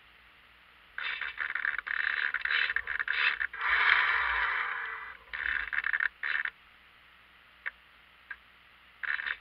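Radio-control servos inside a model yacht's hull whirring in several short bursts, the longest and loudest about four seconds in, as the boat tacks and its sails swing across.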